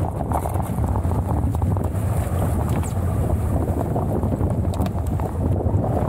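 Heavy wind noise on the microphone while sailing a dinghy in strong wind: a steady low rumble, mixed with water rushing past the boat.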